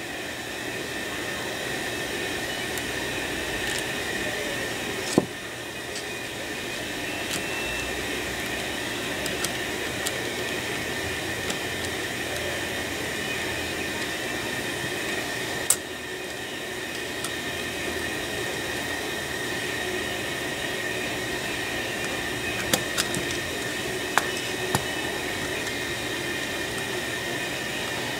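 Steady background hum with a faint high whine, broken by a few sharp small metal clicks as screws are fitted into a Corvair distributor with a screwdriver.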